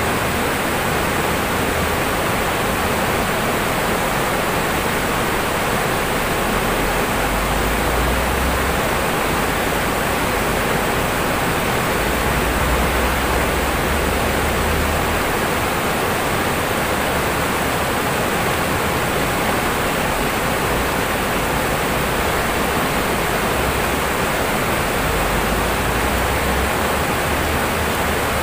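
Fast-flowing river rushing over rocks and through rapids: a steady, even rush of white water.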